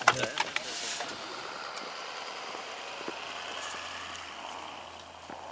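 A vehicle engine running steadily, slowly fading toward the end, with a few clicks in the first second.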